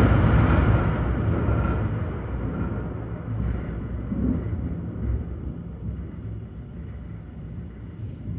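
Thunder rolling: a loud crack-and-rumble peaks at the start, then the low rumble dies away slowly over several seconds with a few smaller swells.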